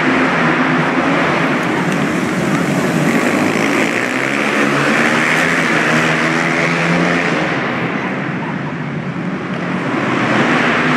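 Flat-track racing motorcycle engines running hard, their pitch rising and falling. The sound dips about eight seconds in and swells again near the end.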